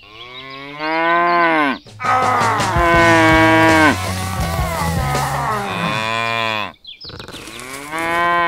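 Cow mooing, dubbed in as a sound effect: a series of long moos back to back, each dropping in pitch as it ends, with a short pause before the last one.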